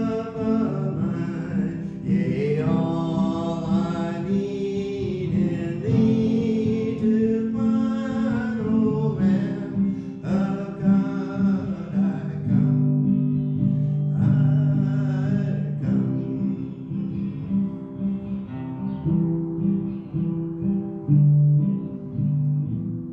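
Guitar playing with a voice singing a song; the singing drops out about two-thirds of the way through, leaving the guitar.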